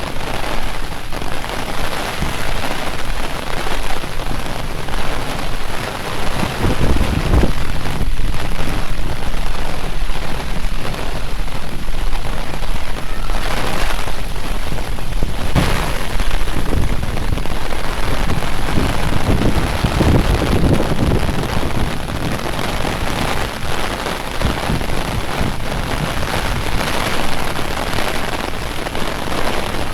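Heavy rain falling steadily, a dense even hiss, with low rumbles swelling in twice, about a third of the way in and again past the middle.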